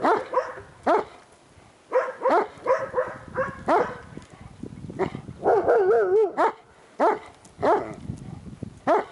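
Shiloh Shepherd barking over and over, about a dozen short barks, with one longer call of wavering pitch a little past halfway.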